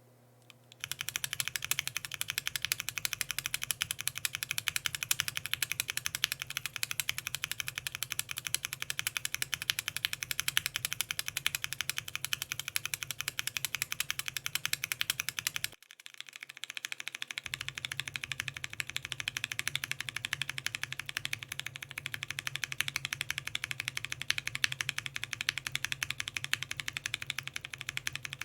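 Fast, continuous typing on a Bakeneko60 mechanical keyboard fitted with Gateron Ink linear switches and PBT keycaps: a dense run of keystroke clacks. About 16 seconds in there is a brief break, and typing resumes on the same switches, now lubed.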